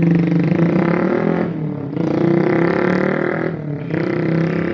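A motor vehicle engine running loudly at a steady pitch, dropping off briefly twice, about a second and a half and three and a half seconds in, then picking up again.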